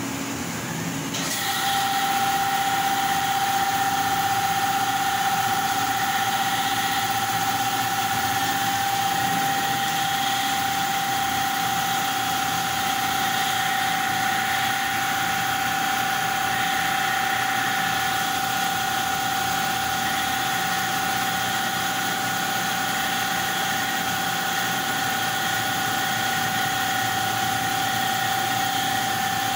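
Laser cutting machine running while it cuts a sheet: a steady mechanical hum, joined about a second in by a steady high whine that holds on.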